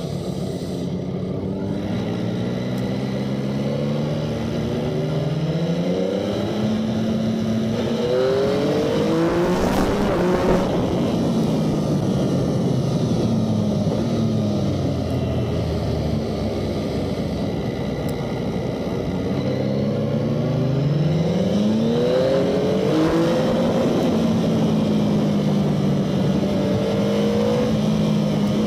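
Motorcycle engine heard from on board over wind noise, its pitch repeatedly rising under acceleration and dropping off through the bends, with quick runs up through the gears about a third of the way in and again past the two-thirds mark, then holding a steadier note near the end.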